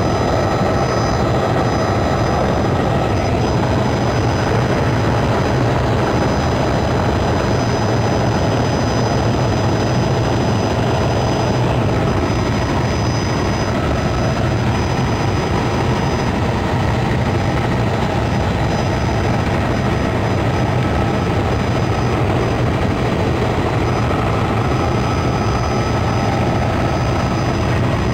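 Helicopter in flight: loud, steady rotor and engine noise with a low hum and a faint high steady whine above it.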